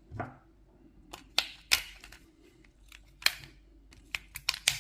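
A series of sharp plastic clicks and taps from an electric salt and pepper grinder being handled, with a quick cluster of clicks near the end.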